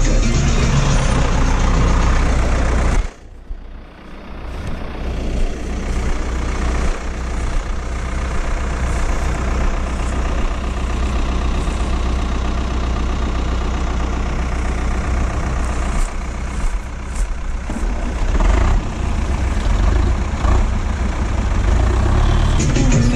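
Diesel farm tractor engine running steadily. The sound drops off sharply about three seconds in, then the engine builds back up and runs on.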